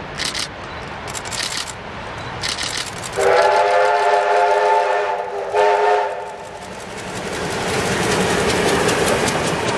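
Steam whistle of Victorian Railways A2 class locomotive 986 sounding one steady blast of about three seconds, briefly broken near its end, as the train approaches. A few sharp clicks come before it, and after it the running noise of the approaching train rises.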